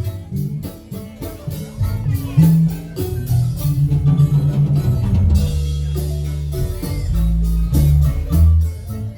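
Marimba band playing: quick, rhythmic struck notes over a strong bass line.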